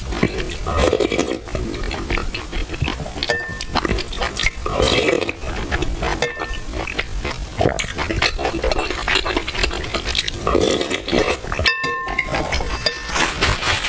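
Close-miked eating of milk tea with soft, chewy purple rice: wet chewing and slurping in quick bursts, with a few short ringing clinks, most likely a spoon against the bowl.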